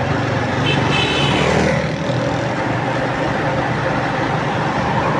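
Steady road-traffic noise, with a vehicle passing about a second in.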